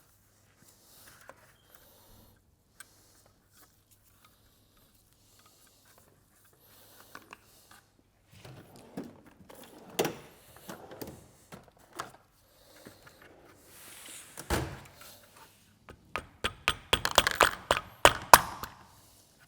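Metal oil pump parts being handled and fitted back together: scattered clicks, then knocks and clatter, with a sharp knock about halfway through and a quick run of clicks and taps near the end.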